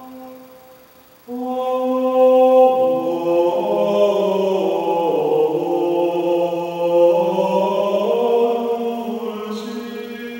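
A man's voice singing Gregorian chant in long, held notes that ring on in a reverberant chapel. A note fades out at the start, and after a short break of about a second the singing resumes, the moving notes overlapping in the echo.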